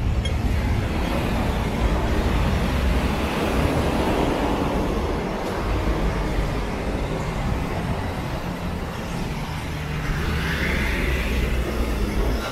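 Road traffic: a steady low rumble of cars and larger vehicles on a busy street, swelling a little near the end.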